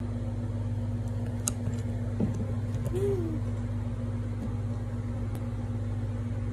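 A steady low hum, with a short rising-and-falling hummed 'mm' from a child about three seconds in and a few faint clicks.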